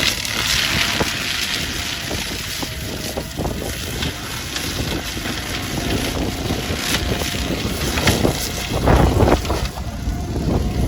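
Spider excavator's engine running under load while its mulcher head grinds through boxthorn shrubs, with scattered sharp knocks and a low surge near the end. Wind buffets the microphone.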